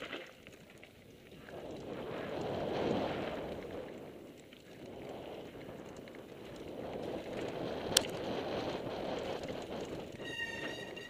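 Mountain bike ripping down dirt singletrack: tyre roar on the dirt and wind rushing over the microphone, swelling and easing with speed. A sharp knock about eight seconds in, and a short pitched squeal near the end from the rear brake being grabbed hard.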